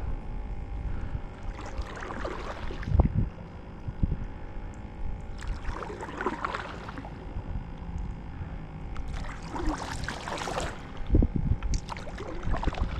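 A kayak moving through calm water, with a swish of water every few seconds and a couple of low thumps.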